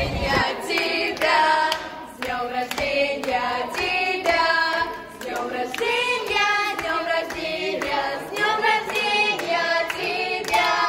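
A group of voices singing a song in chorus over music, with a steady beat.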